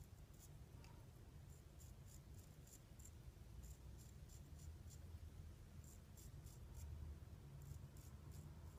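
Riccardo Tonarini 7/8 straight razor scraping through lathered stubble in short, quick strokes: a faint, crisp rasp coming in several runs of strokes with brief pauses between them.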